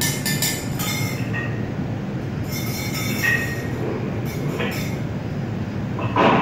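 Live experimental electronic noise music: a steady low rumble with crackly bursts near the start and in the middle, short squealing tones, and a louder swell just before the end.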